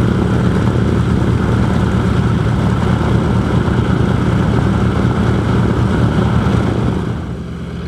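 Radial engine of a propeller warbird running steadily on the ground, its propeller turning: an even, deep drone that eases slightly near the end.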